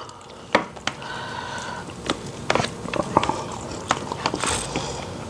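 Metal forks clicking and scraping on a plate, with chewing close to the microphone, as two people eat rice, gravy and fried chicken.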